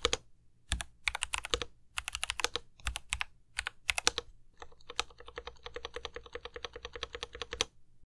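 Typing on an Aiguox GK83 aluminium-case custom keyboard fitted with Akko Jelly Blue switches and GMK-clone keycaps: an uneven patter of keystrokes, then, from about halfway, a fast, even run of keystrokes that stops just before the end.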